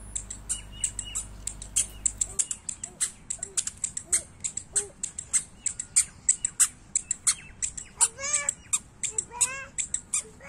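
A flock of small birds chirping busily, several sharp high chirps a second, with a couple of louder, longer, harsher calls about eight and nine and a half seconds in.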